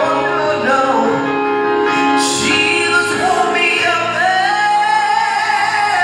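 A man singing a gospel song into a microphone, holding long notes that waver, over sustained instrumental backing.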